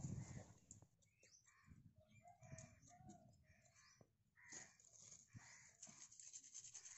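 Faint crows cawing in the background: a run of short caws about two seconds in and another starting about four and a half seconds in. There is a soft low thump at the very start.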